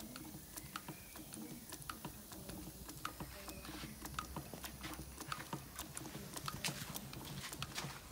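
Light, irregular clicking and tapping, several clicks a second, from a 3½-inch gauge model locomotive standing on blocks with its driving wheels off the bench, over a faint low hum that fades out about five seconds in.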